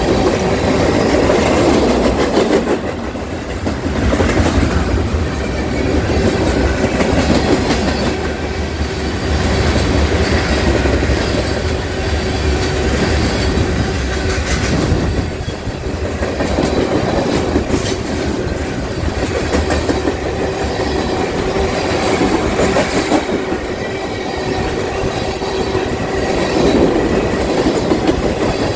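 Freight train of tank cars rolling past close by: steel wheels clicking over the rail joints in a running clickety-clack over a steady rumble.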